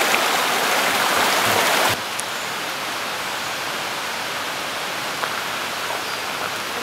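Steady rushing of a stream, a continuous hiss of flowing water that drops in level about two seconds in.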